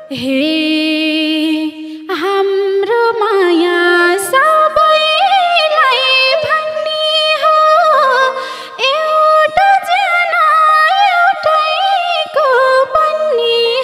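Live Nepali lok dohori music: a held, wavering note for about the first two seconds, then a winding folk melody.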